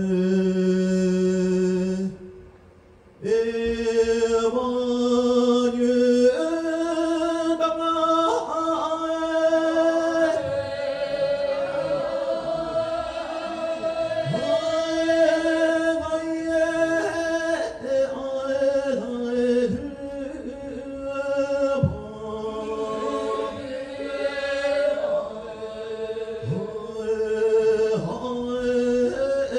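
Solo Tibetan Lhamo opera singing into a handheld microphone: one voice holding long, drawn-out notes that step up and down between pitches, with a brief break about two seconds in.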